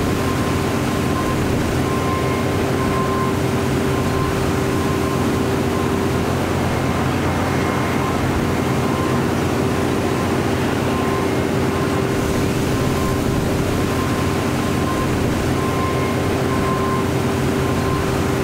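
Steady drone of running machinery: an engine-like hum with a few constant pitched tones over a rumble, holding an even level.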